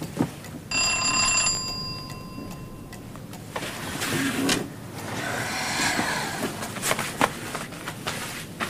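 A single bell-like chime about a second in, its tone fading away over the next two seconds. It is followed by rustling movement and a couple of sharp knocks.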